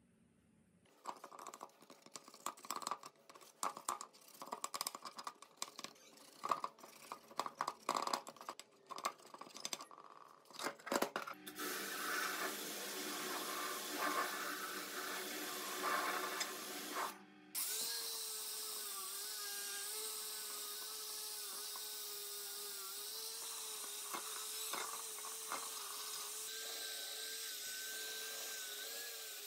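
Tool work on metal engine parts: about ten seconds of irregular clicks and scrapes, then a small electric power tool runs steadily. It stops for a moment and starts again with a steady, slightly wavering whine.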